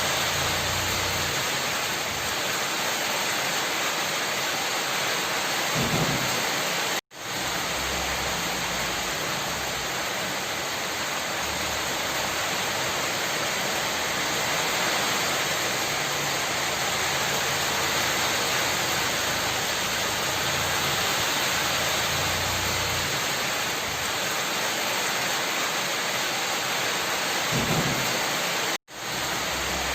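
Steady heavy rain falling, a dense even hiss. Twice, a brief low rumble is followed by the sound cutting out for an instant: once about seven seconds in and again near the end.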